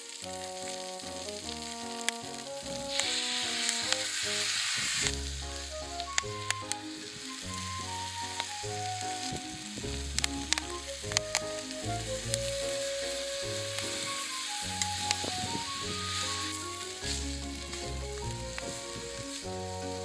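Yakisoba frying in a hot pan: a steady sizzle that swells twice, with sharp clicks and taps of a utensil stirring the noodles. Background music with held notes and a bass line plays over it.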